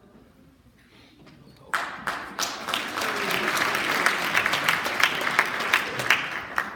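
Audience applauding, starting suddenly about one and a half seconds in as many quick hand claps, and dying away near the end.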